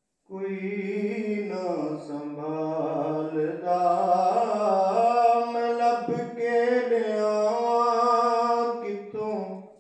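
A man's voice chanting a naat with no instruments, drawn out in long held, melismatic notes.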